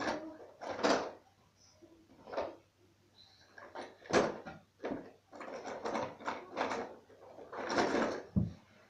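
Rummaging through a cardboard shoebox full of fidget spinners: a string of short scrapes, rustles and knocks as the spinners shift against the cardboard and each other, with a dull thump near the end.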